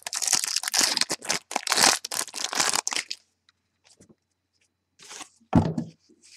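Wrapping on a sealed trading-card mini box being torn open, crackling and crinkling for about three seconds. Then come lighter handling sounds and a single thump near the end.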